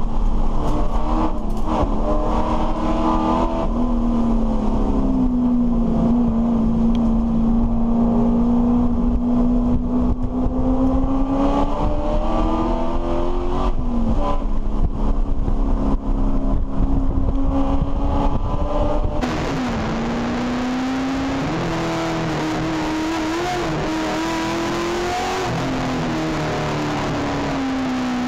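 A racing touring car's engine heard inside the cockpit under racing load. Its pitch falls, climbs slowly and drops sharply at a gear change about 14 s in. About 19 s in it gives way to another race car's engine recorded on its dashcam, a wavering note under a steady rush of road and wind noise.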